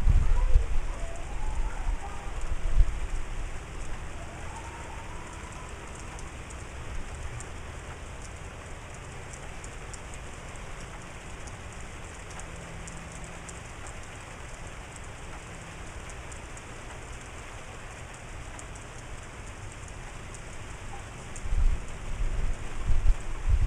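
Steady rain falling, an even hiss with a light patter of drops. Wind gusts buffet the microphone at the start and again near the end.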